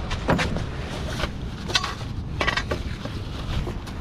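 Fishing gear being handled and loaded into a hatchback's boot: a handful of separate knocks and clatters, over a steady low rumble of wind on the microphone.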